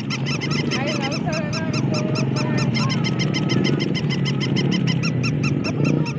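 Battery-operated toys running: a rapid, even electronic chirping, about five or six chirps a second, over the low whir of a walking plush toy dog. A few gliding electronic tones bend up and down in the first half.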